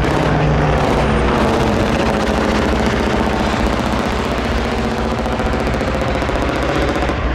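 Military helicopter flying overhead: rapid, steady rotor-blade chop over a constant turbine and gearbox whine.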